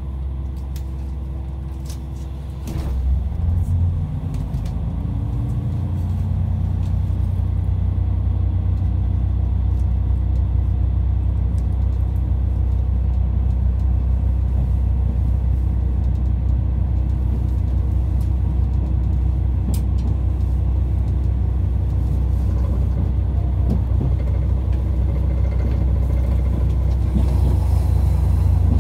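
Train heard from inside a carriage as it pulls away: about three seconds in the low rumble grows louder and rises in pitch for a few seconds as the train gathers speed, then runs on as a steady rumble.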